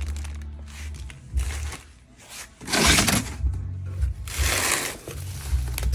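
A cardboard box being opened and its packing handled: irregular rustling and scraping, with two louder tearing rasps about three seconds in and about four and a half seconds in, over a low steady hum.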